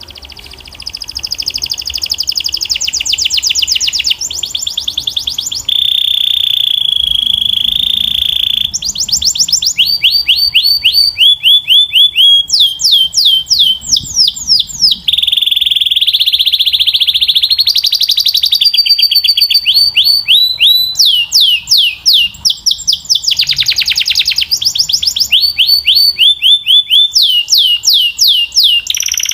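Domestic canary singing a long unbroken song: fast trills of rapidly repeated notes and quick downward-sweeping notes, changing phrase every few seconds, with a couple of held steady whistles.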